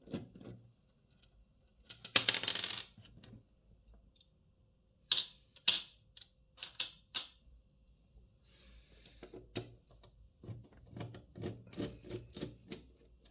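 Metal clicks and clinks of a screwdriver and small screws as brackets are unscrewed from a computer power supply's metal case, with a short rattling scrape about two seconds in and a group of sharp clinks a few seconds later.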